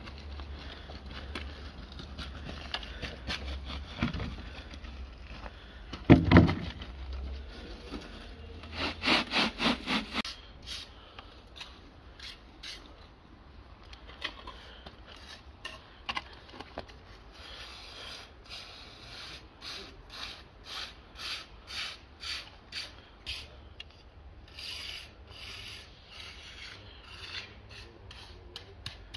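Footsteps on gravel, evenly paced at about one and a half steps a second through the second half. There is a single sharp knock about six seconds in and a short run of heavier strokes a few seconds later.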